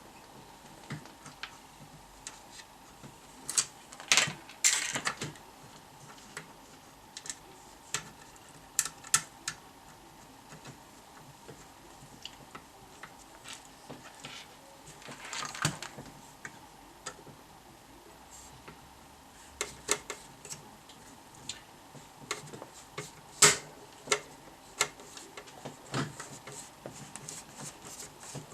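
Irregular clicks and light clatter of small tools and parts being handled during electronics repair work. The clicks come singly and in short clusters, loudest about four seconds in, around the middle and near the end.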